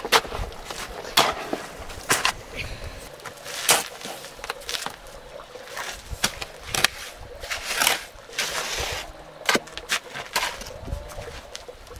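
A steel hoe scraping and slapping wet cement mortar over stones, in repeated sharp strokes about once a second.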